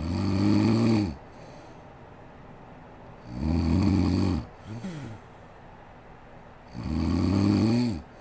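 A woman snoring in sleep: three long, pitched snores on the in-breath about three and a half seconds apart, the second followed by a brief, softer snort.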